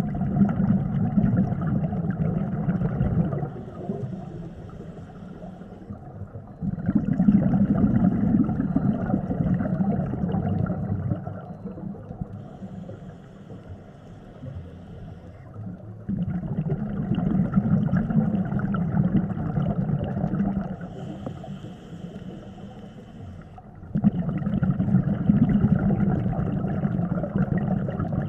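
Scuba regulator breathing heard underwater: long bubbling exhalations of about four seconds each, four in all, alternating with three quieter inhalations that carry a faint hiss from the regulator.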